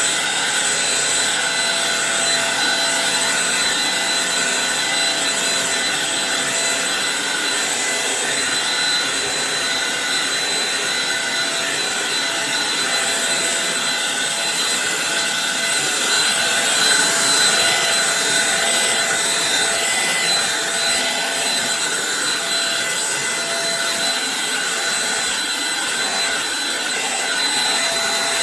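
Eureka NES215A Blaze stick vacuum cleaner running steadily: a constant motor whine over the rush of air.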